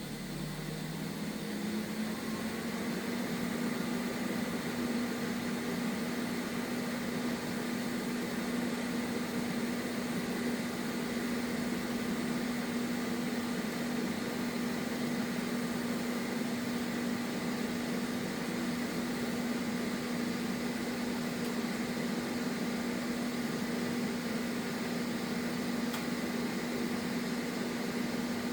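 TIG welding arc from a Vulcan 205 welder, a steady electrical buzz and hiss. It climbs in pitch and loudness over the first couple of seconds, as the current is brought up with the foot controller, then holds even.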